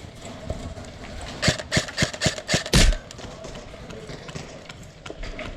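Airsoft gun shots: about six sharp cracks in an uneven run over roughly a second and a half, the last one the loudest.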